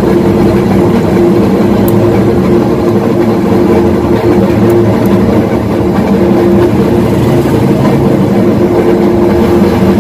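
A steady mechanical hum of unchanging pitch, with a few faint clicks.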